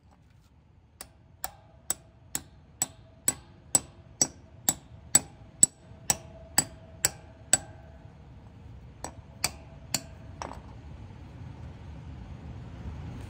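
Hammer driving a 3/8-inch steel wedge anchor bolt down through an air compressor's foot into a concrete floor: a steady run of about fifteen blows, about two a second, each with a short metallic ring. After a pause come three or four more blows.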